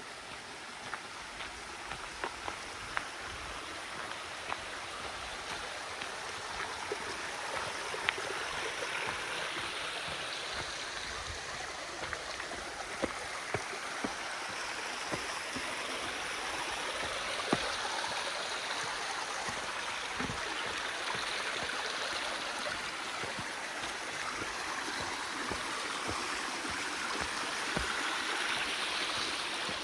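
A forest stream flowing, a steady rush of water that grows slowly louder, with scattered sharp ticks over it.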